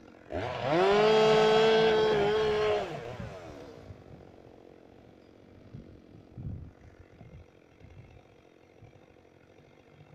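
Two-stroke chainsaw revved up to full throttle, held at a steady high pitch for about two and a half seconds, then winding back down to idle. A few faint knocks follow.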